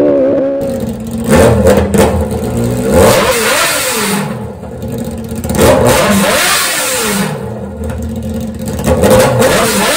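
Straight-piped 1000 cc superbike engine of a drag kart, a Kawasaki ZX-10R, revved hard about four times. Each rev rises sharply and falls back between blips, very loud.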